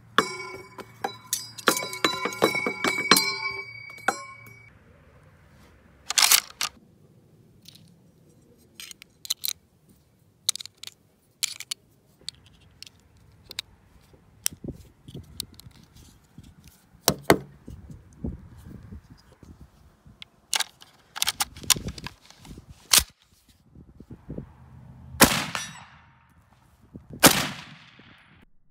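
Brass .30-06 cartridges and a steel en bloc clip for an M1 Garand being handled and loaded: a quick run of ringing metallic clinks at first, then scattered clicks and snaps as the rounds go into the clip, with a few louder sharp clacks near the end.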